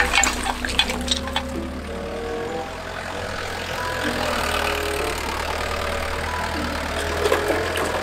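Excavator's diesel engine running steadily under load as the bucket digs and loads dirt and rubble, with clatter of stones in the first second or so.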